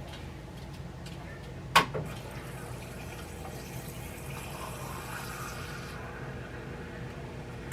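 A sharp click about two seconds in, then a few seconds of water running and filling a container.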